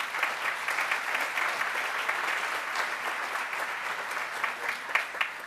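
Audience applauding, many hands clapping together; the clapping holds steady, then thins out near the end.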